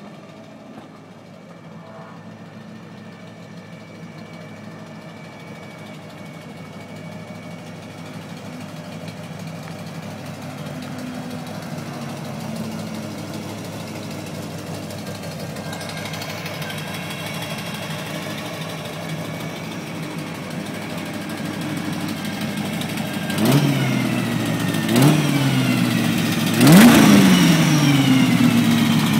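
Ford GT40's V8 engine running as the car drives up, growing steadily louder. Near the end it is revved three times, each rev rising sharply and falling away.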